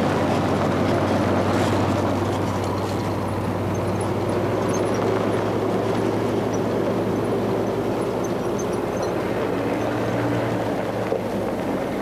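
Pickup trucks and four-wheel-drive vehicles driving over desert gravel: a steady engine hum and tyre noise.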